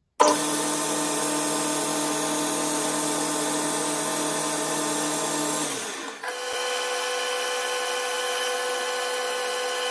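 Boxford metal lathe running steadily while cutting a bronze valve guide, a steady machine whine with several fixed tones. About six seconds in it dips, then comes back as a different steady whine.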